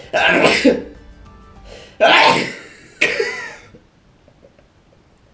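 A man sneezing twice, hard, about two seconds apart, then a shorter, weaker vocal burst. The sneezes are set off by sniffing dried hare cabbage (orpine) root.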